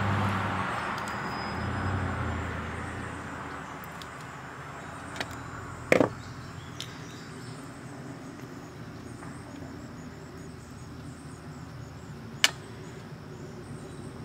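Clicks of small parts handled while a two-stroke generator carburetor is taken apart: three sharp clicks, the loudest about six seconds in and another near the end, over steady low background noise with faint insect chirping.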